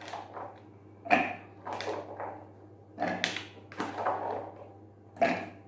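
A spoon scooping boiled chickpeas out of a bowl and tipping them into a hand blender's plastic chopper bowl: a series of knocks and scrapes, about one a second.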